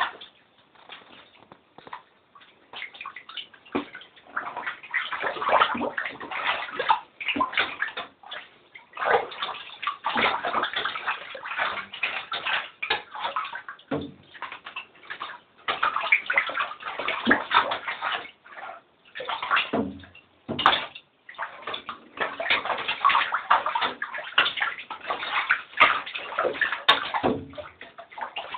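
Water splashing and sloshing in irregular bouts with short pauses, as a pet mink swims and fetches toys in the water.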